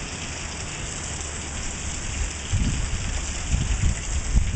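Steady hiss of a storm downpour falling on the ground and the porch roof during a hailstorm. Irregular low buffeting rumbles join in about halfway through.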